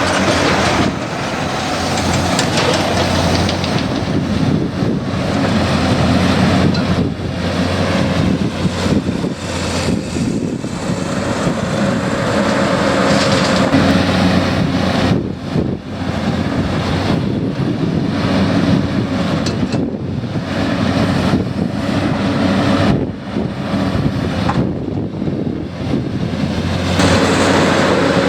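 Diesel engines of heavy construction machinery running steadily, a low engine drone under a broad mechanical noise that dips briefly many times.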